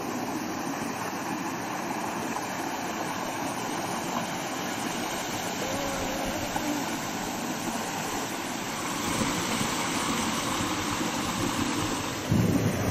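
Meltwater rushing across and off the edge of an aufeis ice field, a steady rush. About twelve seconds in it gets louder and deeper.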